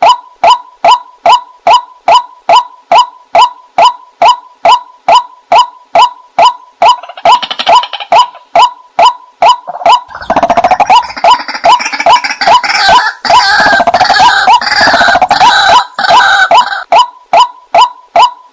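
White-breasted waterhen calls played as a hunting lure: one short note repeated evenly about two and a half times a second, with a louder, busier stretch of overlapping calls through the middle before the plain repeating note returns.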